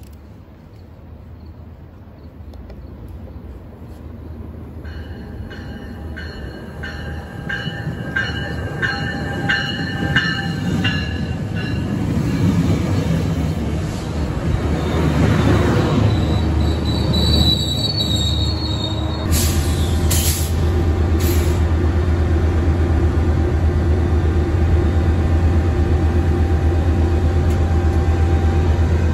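Metrolink passenger train pulling into the station, growing louder as it nears. Its steel wheels click over the rails and squeal in high tones as the bilevel coaches roll past under braking. About twenty seconds in there are short hisses of air, and then the locomotive's diesel engine hums steadily as the train stands at the platform.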